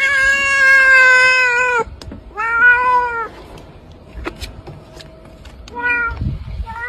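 A cat meowing loudly in long, drawn-out wails. The first lasts almost two seconds and falls in pitch at its end. A second, about a second long, follows shortly after, and there are two short meows near the end.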